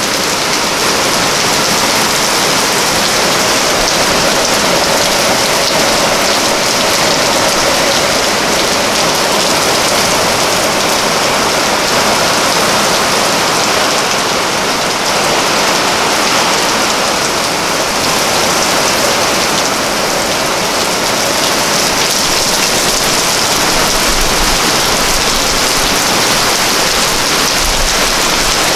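Heavy thunderstorm downpour: rain falling hard and steady without a break.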